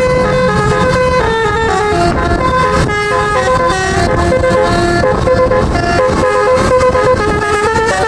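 Multi-tone telolet bus horn playing a quick tune of stepped notes over a steady low rumble.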